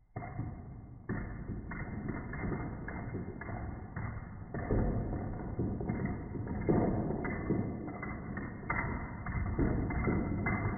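Metal padlocks toppling one into the next down a domino chain: an irregular run of dull clacks and thuds, sounding slowed down and deep as in slow-motion playback.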